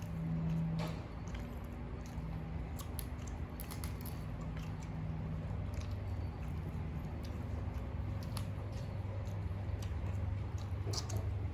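Close-up eating sounds: chewing and mouth smacks with scattered small clicks, over a steady low hum.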